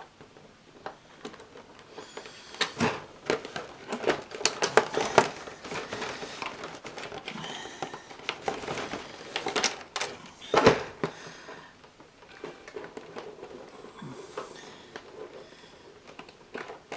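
Plastic packaging being handled: irregular clicks, crinkles and knocks as statue parts, tied in with fine wires, are worked free of their packing tray. The loudest knock comes a little past halfway.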